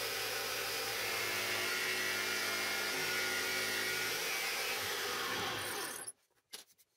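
Small homemade scroll saw running, its blade moving up and down to cut a small piece of wood, with a steady motor hum and noise. The sound stops suddenly about six seconds in, followed by a few faint clicks.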